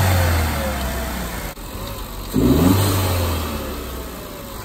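Turbocharged car engine being revved while parked with its air intake removed: a rev dies away at the start, then a quick blip of the throttle about two seconds in rises sharply and slowly falls back toward idle.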